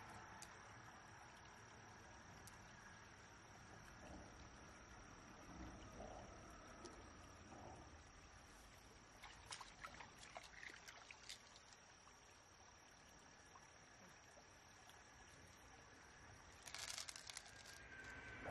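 Quiet creekside ambience: a steady high insect drone, cricket-like, over a faint trickle of running water. A few small clicks come about halfway through, and a short rustle near the end.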